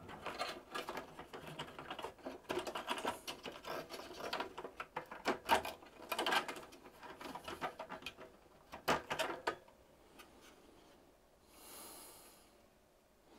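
Clicks, scrapes and rattles of plug-in circuit cards being worked out of their card-cage slots and edge connectors, the handling noise stopping about nine and a half seconds in, with a brief soft hiss near the end.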